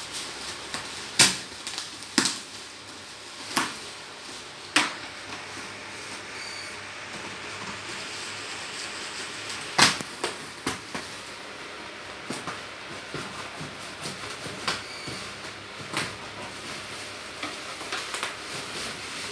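Bubble-wrap and plastic packaging on a cardboard box crinkling and rustling as it is handled and unwrapped, with a handful of sharp snaps or pops among smaller crackles.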